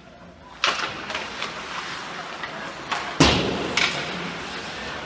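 Ice hockey play: a run of sharp knocks and thuds from puck, sticks and boards. The loudest is a heavy slam about three seconds in, with another knock just after it.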